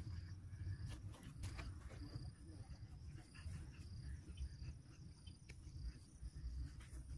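Faint outdoor ambience: a steady low rumble on the microphone, with short high chirps of insects repeating throughout and a few light clicks.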